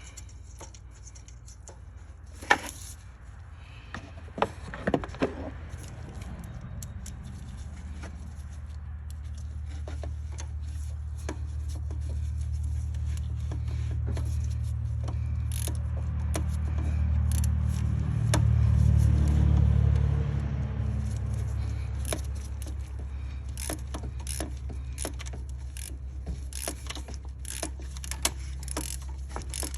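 Metal hand tools clicking and clinking as a Torx bolt is worked back in under the hood, with a couple of sharper clanks early on. A low rumble swells and fades in the middle.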